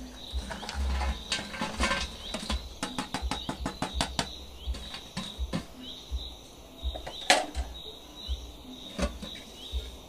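Light clicks, knocks and rattles from handling a black metal box oven, with a quick run of clicks a few seconds in. A bird chirps over and over in the background.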